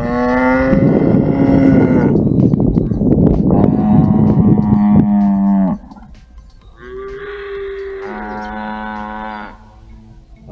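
Cattle mooing: two loud, long moos one after the other, then a softer long moo about seven seconds in.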